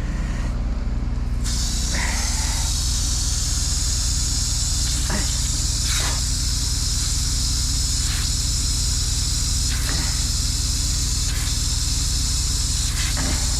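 Water hissing steadily as it sprays out of a leaking water main, starting suddenly about a second and a half in, over the steady drone of an idling engine, with a few light knocks.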